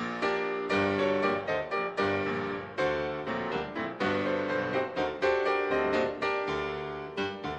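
Piano music: notes and chords struck in quick succession, each one fading before the next.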